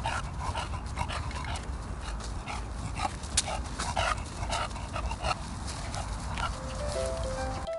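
English bulldog panting as it trots, quick rhythmic breaths about three a second.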